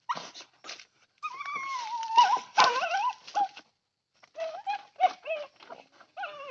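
A dog whining in long whines that slide up and down in pitch, with short yips about the first second. It is the eager whining of a hunting dog on a rat.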